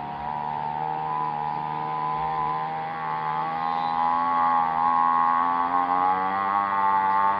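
A man's voice imitating a sound as one long, steady held tone, rising slightly in pitch and getting louder about four seconds in.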